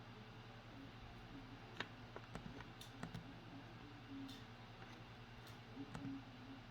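Faint, scattered light clicks and taps of small objects being handled, over a steady low hum.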